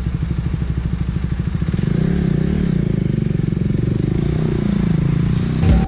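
Motorcycle engine idling with an even beat, then revving up about two seconds in as the bike pulls away.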